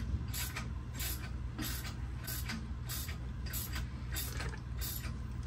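Harmonic balancer installation tool being turned by hand to press the balancer onto the engine's crankshaft snout. It creaks rhythmically about twice a second, and there is one sharp knock right at the end.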